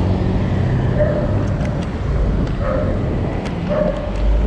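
Steady low rumble of vehicle and road noise, with a short higher tone recurring about once every second or so and a few faint clicks.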